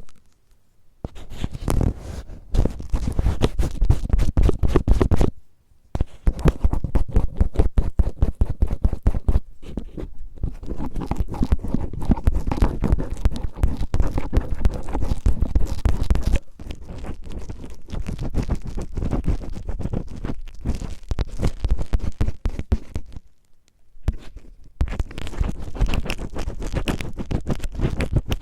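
Cellophane crinkled and rubbed roughly against the microphone in rapid scratchy crackles, an ASMR imitation of ear cleaning. The crackling stops briefly about a second in, about six seconds in, and again near the end.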